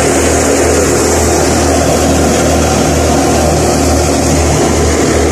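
Wheat-threshing farm machine running steadily at full work, a loud constant engine hum with the rattle and rush of the threshing underneath.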